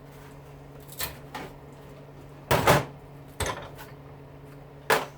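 Several knocks and clatters of tools and hose fittings being handled on a workbench, about five in all, the loudest about two and a half seconds in, over a steady low hum.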